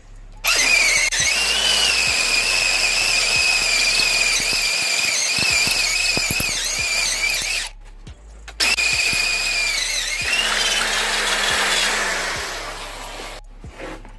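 Power drill bit cutting through metal, squealing loudly at a high, slightly wavering pitch while a hole is enlarged to 1/2 inch for the handlebar risers. The squeal runs about seven seconds, breaks off for about a second, then comes back for a few seconds and fades away.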